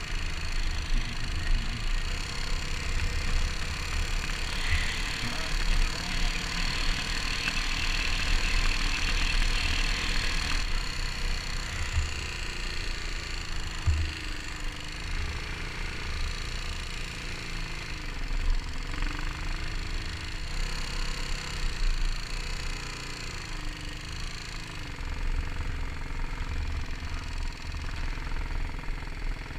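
Kawasaki KLR dual-sport motorcycle's single-cylinder engine running while riding on a gravel road, its pitch wavering with the throttle, under heavy wind buffeting on the microphone.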